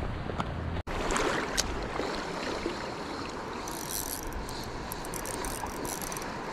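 Creek water flowing: a steady rush of running water.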